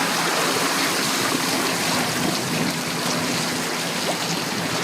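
Strong wind blowing on the microphone as a steady rushing noise, with a low steady engine hum underneath.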